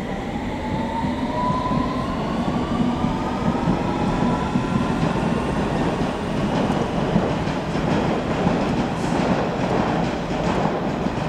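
London Underground S7 stock train pulling away: its traction motors whine, rising steadily in pitch over the first several seconds, over the rumble of the wheels, which then run on with a clatter on the track.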